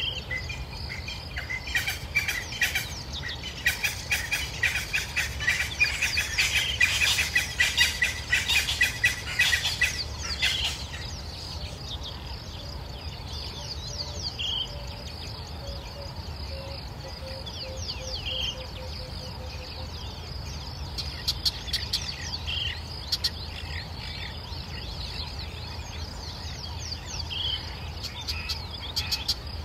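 Birds chirping and calling: a dense, busy chatter for the first ten seconds or so, then thinner, with one short call repeating about every four seconds, over a steady low hum.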